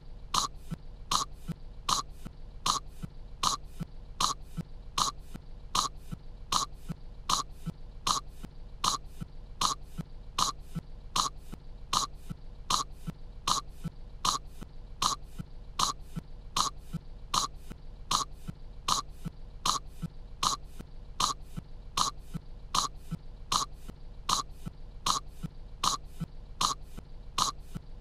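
A cartoon young girl's short cough, looped so that the same cough repeats at an even pace, nearly twice a second.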